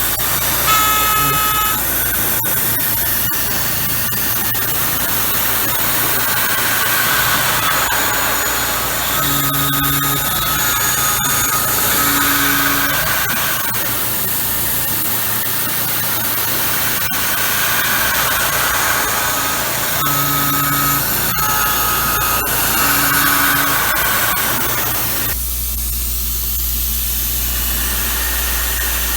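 Tormach PCNC 770 CNC mill cutting aluminum: a steady hiss of cutting noise with short whining tones that start and stop as the axes move. About 25 seconds in, the cutting noise drops away and a low machine hum remains.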